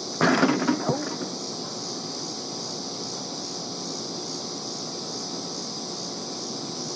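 A basketball shot comes down on the backboard and rim a moment in: a short clattering burst lasting under a second, ending in a last knock. A steady high hiss runs underneath.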